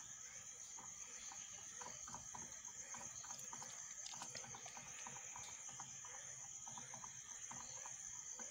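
Faint, steady high-pitched chirring of crickets, with soft scattered wet clicks and pats from a hand pressing on a live catfish in a basin of shallow water.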